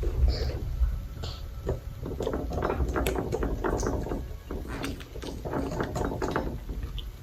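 Close-miked food and eating sounds: irregular small crackles, clicks and smacks over a low rumble.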